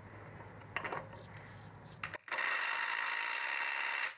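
Ryobi PSBID01 brushless compact impact driver hammering steadily on a truck lug nut torqued to 90 foot-pounds, working to break it free; the loud impacting starts a little past halfway and cuts off abruptly near the end. A few faint clicks come before it.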